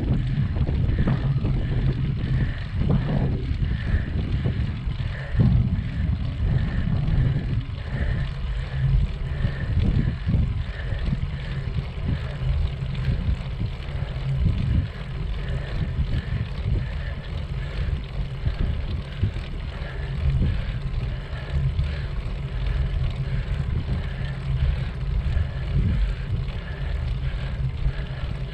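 Wind buffeting the microphone and tyre and road noise from a moving bicycle, a steady low rumble with gusts, with a faint regular tick about twice a second.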